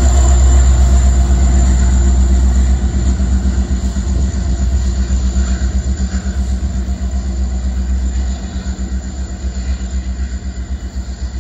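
EMD SD70ACe diesel locomotive, the rear distributed-power unit of a coal train, rumbling past with its two-stroke V16 engine running, then fading gradually as it pulls away.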